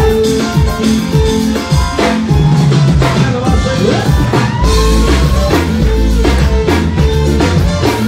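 Live duranguense band music through the PA: an instrumental dance passage with drum kit and bass keeping a steady, driving beat under sustained melodic instrument lines.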